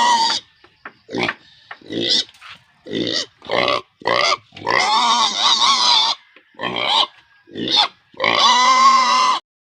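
Pigs squealing loudly in a run of short and drawn-out cries, the longest about five seconds in and again near the end, where they stop abruptly.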